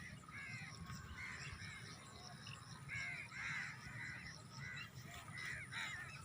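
Birds calling outdoors: a steady run of short, arched calls, about two a second, over a low background rumble.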